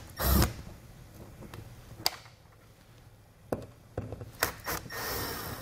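Cordless drill-driver with a Phillips bit backing out small mounting screws: a short burst of the motor right at the start and a longer run near the end, with a few light clicks and taps in between.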